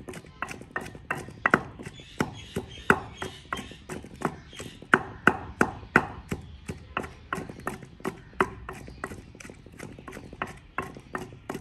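Pestle pounding a wet spice paste of garlic, ginger and green chillies in a kunda, with steady rhythmic strikes at about two to three a second.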